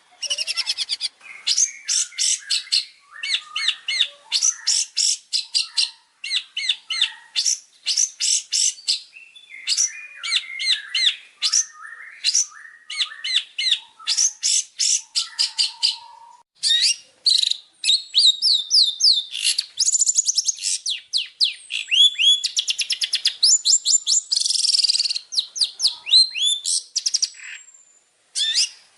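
Long-tailed shrike (cendet) singing a fast, varied song of rapid chattering note runs and trills with brief pauses between phrases.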